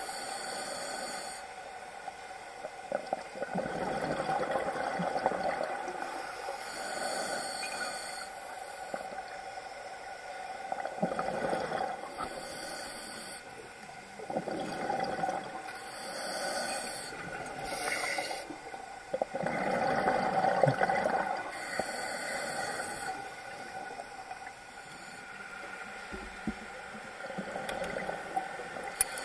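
Scuba diver breathing through a regulator underwater: a short hiss on each inhale every few seconds, alternating with longer, lower bubbling of exhaled air.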